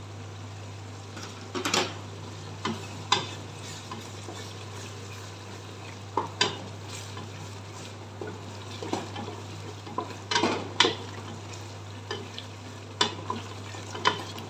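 Masala with freshly added ginger-garlic paste frying in oil in a pressure cooker pot, sizzling steadily as a wooden spatula stirs it, with scattered knocks and scrapes of the spatula against the pot.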